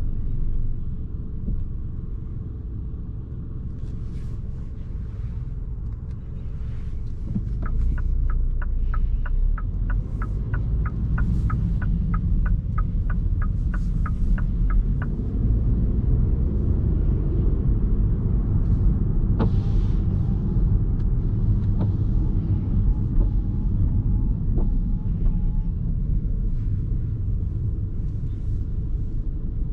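Steady low road and tyre rumble from inside a 2021 MINI Cooper S E Countryman plug-in hybrid under way. Partway through, a run of sharp, even ticks about three a second lasts some seven seconds, typical of the turn-signal indicator.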